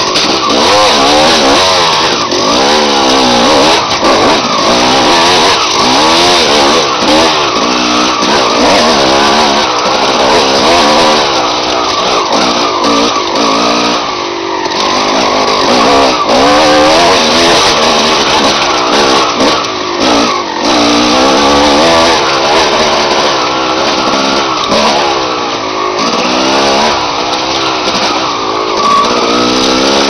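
Dirt bike engine revving continuously under a rider's throttle on a trail ride, heard from on the bike, its pitch rising and falling every second or so.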